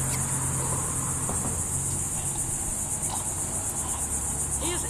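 Chorus of insects, a steady high-pitched shrill with a fast pulse, over a low steady hum.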